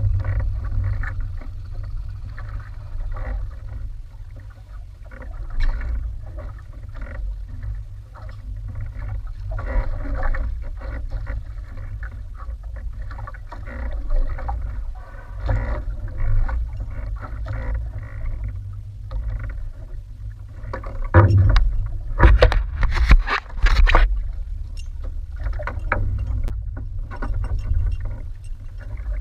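Wind buffeting the microphone and sea water slapping against the hull of a small outrigger fishing boat drifting on open water, with a louder stretch of buffeting and splashing about three quarters of the way through.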